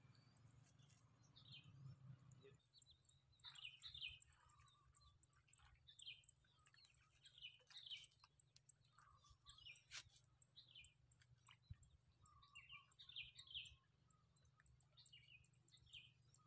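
Faint chirping of small birds: many short, separate calls scattered throughout, over a low steady background hum.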